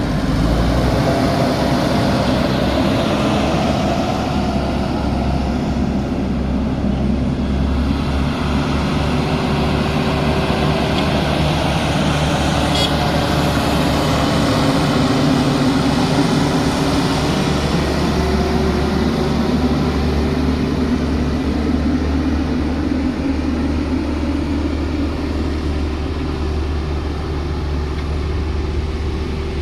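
JCB backhoe loader's diesel engine running steadily under working load, its pitch rising and falling a little as the hydraulics work.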